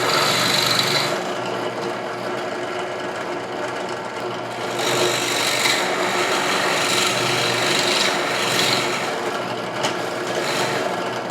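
Drill press running with a 1-inch bit boring a recess into plywood. The cutting noise holds steady over the motor's hum and grows louder for a few seconds around the middle as the bit is fed in.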